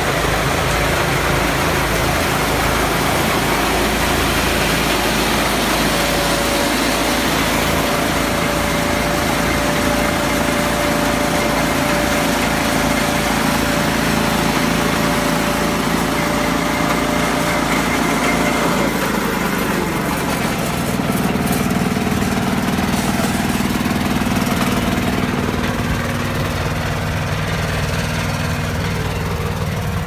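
Mini combine harvester's engine and threshing works running steadily while cutting wheat. A whine comes in and then drops in pitch about two-thirds of the way through.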